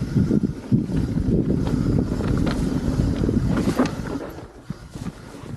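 Wind buffeting the microphone over the clatter of a mountain bike rolling over rough rock, with many small knocks and rattles; it eases off about four seconds in.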